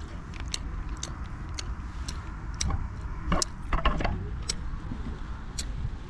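Scattered faint clicks and crinkles from a paper-wrapped pastry being handled and eaten, busiest in the middle, over a steady low rumble.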